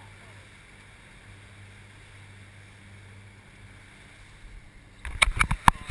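Inflatable boat moving slowly at sea: a low engine hum under wind and water hiss. About five seconds in, a quick run of six or seven loud knocks and thumps.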